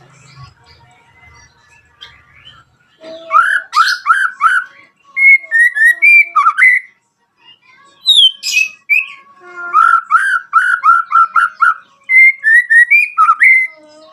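White-rumped shama (murai batu) singing. It gives two long phrases of quick repeated whistled notes, each ending in a run of higher notes. The first begins about three seconds in and the second about eight seconds in.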